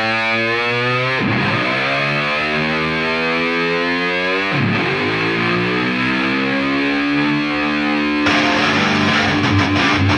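Distorted electric slide guitar mimicking a motorcycle revving up through the gears: the pitch climbs, drops back twice as if shifting, and climbs again. It then settles on a held note as strummed rhythm guitar comes in about eight seconds in.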